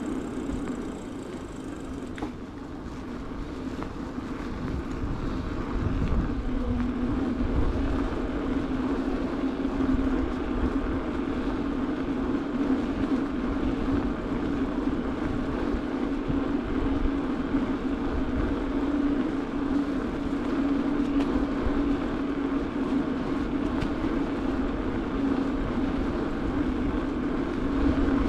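Bicycle tyres humming on asphalt while riding, with low wind rumble on the handlebar-mounted microphone. The hum and rumble grow over the first few seconds as the bike picks up speed, then hold steady.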